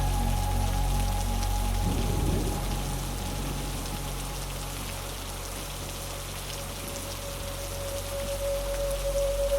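Steady rain under a dark ambient music drone of sustained low tones. The drone thins and quietens through the middle, a new held tone comes in, and it swells again near the end.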